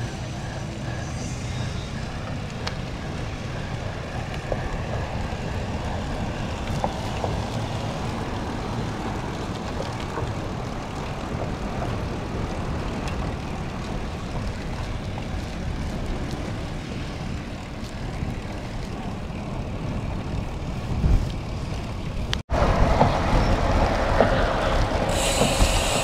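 Steady low wind noise buffeting a windscreened microphone on a road bike in motion, with tyre and road noise underneath. After an abrupt cut near the end, the wind and road noise are louder and brighter.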